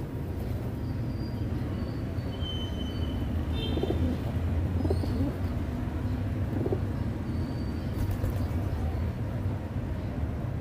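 Feral pigeons cooing a few times in the middle, over a steady low rumble, with faint high chirps of small birds.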